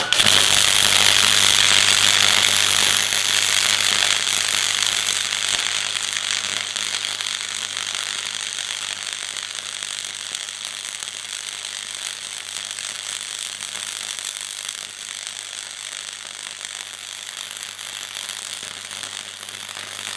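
Parkside PFDS 120 A2 flux-core (gasless MIG) welder arc striking suddenly and then crackling continuously through one long bead, with a steady low hum beneath. It is loudest in the first few seconds and eases off slightly after that.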